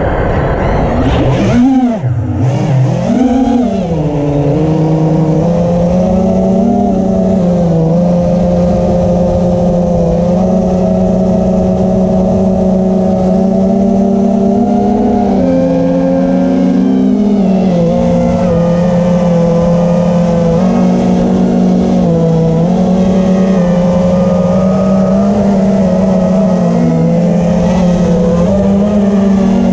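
FPV racing quadcopter's brushless motors and propellers whining, as picked up by the camera on the quad. The pitch swoops up and down sharply in the first few seconds with hard throttle changes, then holds a steady buzz with small dips and rises as the throttle is worked in flight.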